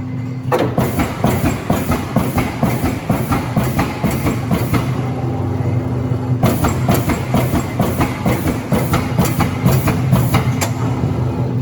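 Amada PEGA CNC turret punch press punching sheet metal, with rapid repeated strokes several a second over a steady machine hum. The strokes ease off briefly about halfway through and again near the end.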